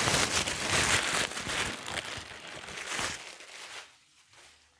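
A thin white wrapper sheet crinkling and rustling as it is pulled off a keyboard, dying away about four seconds in.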